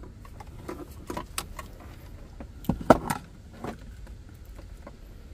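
Plastic plugs and wires of a car-stereo wiring harness clicking and rattling as they are handled, with the loudest clicks about three seconds in.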